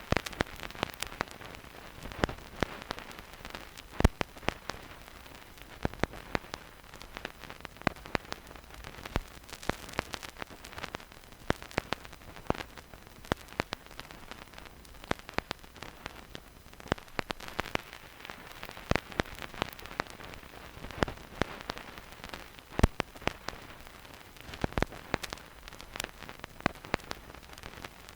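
Vinyl record surface noise with no music: a steady hiss with irregular crackles and pops as the stylus runs in the groove, a few of the pops much louder than the rest.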